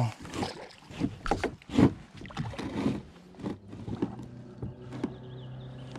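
A hooked bass splashing at the surface beside a kayak as it is brought in, with irregular splashes and knocks of handling against the plastic hull. A low steady hum runs under it from about halfway through.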